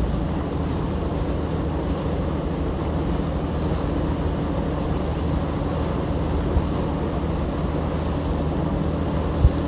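Boat engine running steadily under way, with wash of water and wind on the microphone; a brief low thump near the end.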